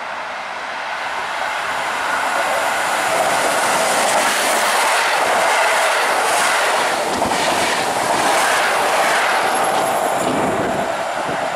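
PKP Intercity express train passing through the station at speed without stopping: a rushing noise of wheels on rail that builds over the first two seconds, with a run of clickety-clack from the wheels as the coaches go by.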